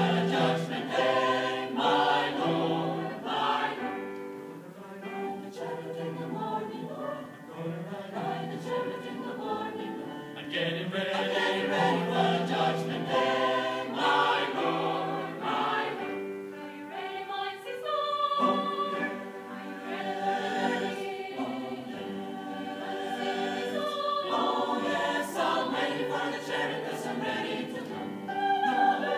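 Mixed choir of men and women singing a spiritual in several parts, with the loudness swelling and easing back through the passage.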